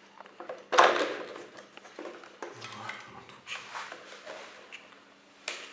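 Handling noises of plastic vacuum-cleaner parts: knocks, clicks and rustling, loudest in a sharp scrape about a second in, over a faint steady hum.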